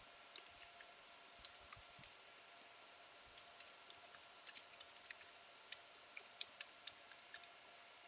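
Faint, irregular clicking of computer keys being typed, in short runs that come thicker in the second half, over a low steady hiss and hum.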